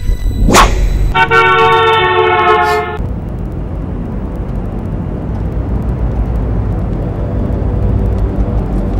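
A car horn sounds one long held blast of steady tones for about two seconds, starting about a second in, then cuts off to the steady low road and engine noise heard inside a moving car's cabin.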